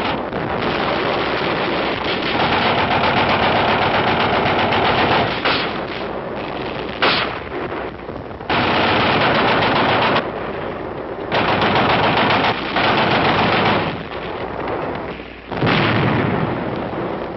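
Machine-gun fire in long sustained bursts with short gaps, a single sharp shot about seven seconds in, and a heavy blast of an explosion near the end.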